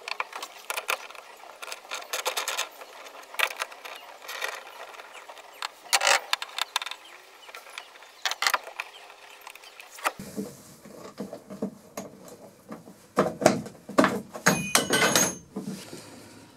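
Clicks, knocks and rattles of hand tools and hardware as the hiking-strap fittings are worked loose from a sailboat's cockpit floor. From about ten seconds in, the knocking and rattling come closer, louder and more frequent.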